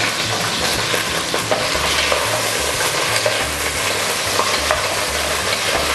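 Chicken pieces and onion rings frying in hot oil in a pot, sizzling and crackling steadily while a wooden spoon stirs them.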